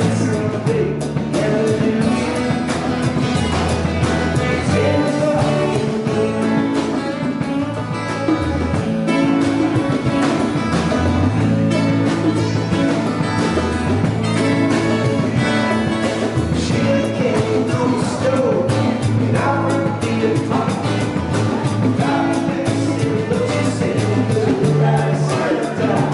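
A small band playing live, with hand-played congas and strummed acoustic guitars, over a steady bass line.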